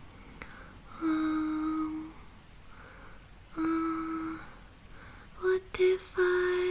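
A woman humming slow, held notes of a lullaby-like tune, three phrases with pauses between, the last broken into a few short notes. A steady white-noise hiss lies under it.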